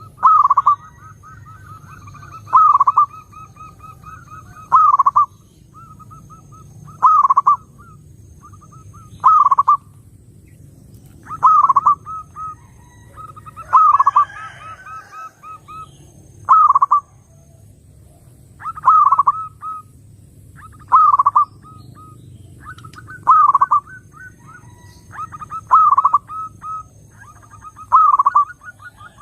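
Zebra dove (perkutut) singing its cooing song over and over: a rapid run of short coos ending in a loud, falling coo, repeated about every two seconds.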